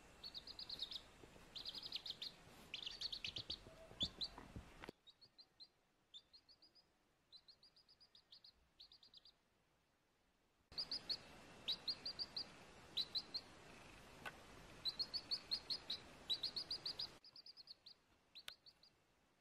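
Baby chick peeping: short, high, falling peeps in quick runs of several at a time, with short pauses between runs. A faint background hiss behind them drops away about five seconds in, returns past halfway and drops again near the end.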